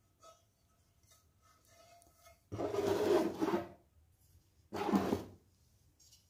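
Handling noise of a non-stick frying pan and its cardboard box being moved, rubbing and scraping in two bursts, one a little over halfway through the first half and a shorter one about a second later.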